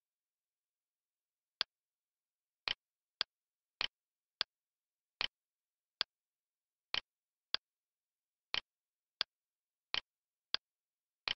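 Computer mouse button clicking: about fourteen sharp clicks with dead silence between. They mostly come in press-and-release pairs about half a second apart, as when clicking and dragging.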